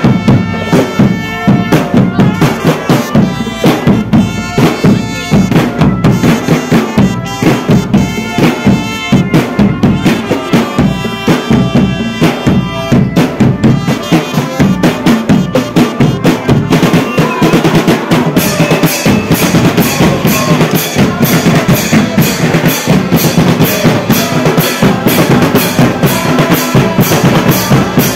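Marching drum band playing: snare drums, bass drums and hand cymbals beating out a fast, steady rhythm, loud and close.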